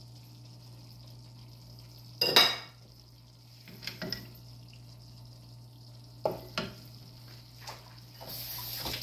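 Kitchen utensils knocking against a sauce pan and the stovetop: one loud clatter about two seconds in, then several lighter clinks in pairs, and a short stretch of scraping near the end, over a steady low hum.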